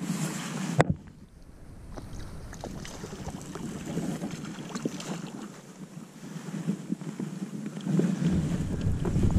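Wind buffeting an action camera's microphone, a heavy low rumble that cuts off suddenly about a second in and gusts back near the end, with scattered light ticks and knocks in between.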